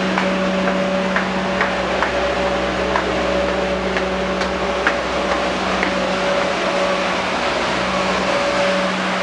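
Steady machinery hum on a cruise ship, holding two fixed pitches over a constant rushing noise, with a few faint scattered clicks.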